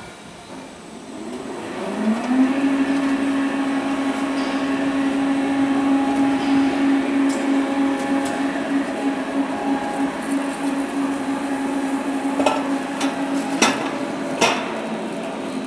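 A two-wave highway guardrail roll forming machine starts up: its drive, a 15 kW main motor through a gear reducer, climbs in pitch about a second or two in and then runs with a steady hum as the steel is rolled through the forming stands. Three sharp metallic knocks come near the end.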